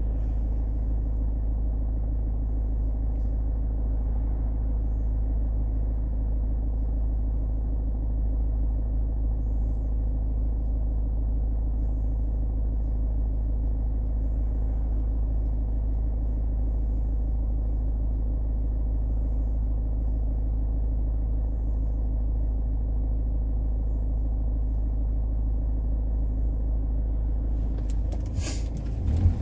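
Steady low rumble of a car's engine and road noise inside the cabin, picked up by a dashboard camera. A short burst of noise breaks in near the end.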